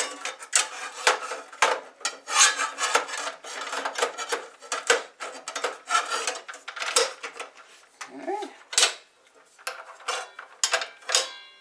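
Metal clinking and rattling as a DeWalt mitre saw's blade, washers and arbor bolt are handled and fitted back onto the arbor, many irregular small knocks and jingles.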